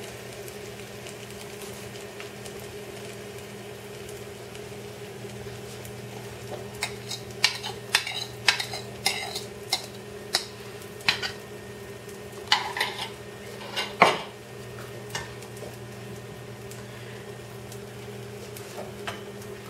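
Omelette egg mixture sizzling steadily in butter and oil in a hot frying pan, over a steady low hum. A utensil scrapes and taps against the pan in clusters from about seven to fifteen seconds in, the loudest knock about fourteen seconds in.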